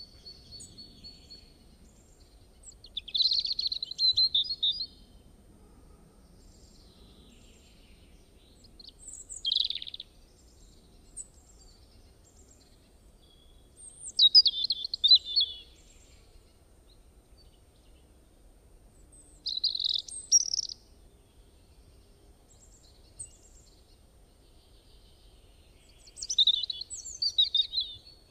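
A songbird singing in short phrases of quick high chirps, five phrases spaced about five seconds apart, each lasting one to two seconds.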